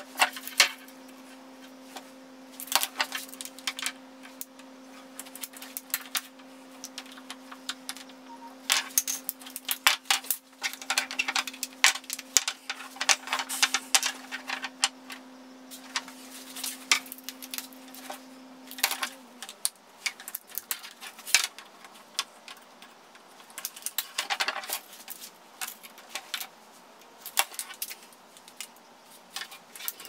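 Hard plastic clicks and knocks of PVC pipe being pushed into PVC elbow and tee fittings and set down on a wooden workbench, coming irregularly throughout. A steady low hum runs beneath and stops about two-thirds of the way through.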